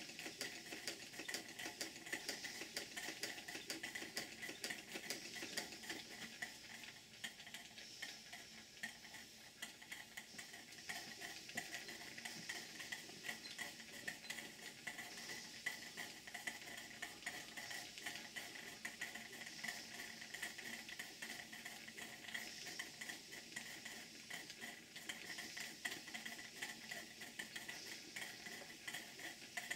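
Two model steam engines, a beam engine and a hypocycloidal engine, running steadily on live steam: a fast, continuous light clicking of the moving parts with a faint steam hiss.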